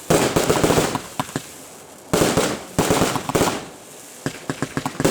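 Fireworks display: volleys of rapid bangs in dense clusters about half a second to a second long, coming three or four times with quieter gaps between.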